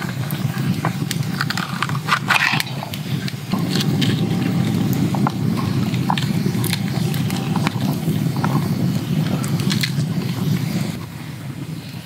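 Folding knife cutting crisp green peppers on a wooden cutting board: short crunchy cuts and clicks of the blade on the board, the loudest cluster about two seconds in, then fingers scraping out the seeds. A steady low rushing noise sits underneath, louder from a few seconds in.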